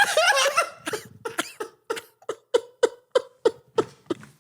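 A man laughing hard, trailing off into a run of short, breathy laugh pulses about three a second that fade away.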